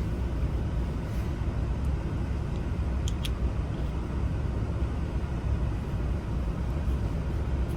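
Steady low background rumble, with two faint small clicks about three seconds in.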